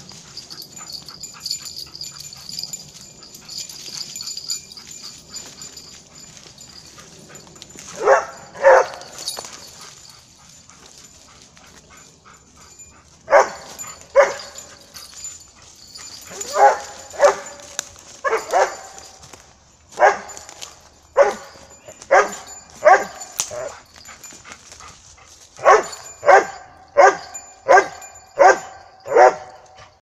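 Airedale terrier barking repeatedly: the search-and-rescue dog's bark alert at a found person. A pair of barks comes about eight seconds in, then barking in short volleys, faster and more regular near the end.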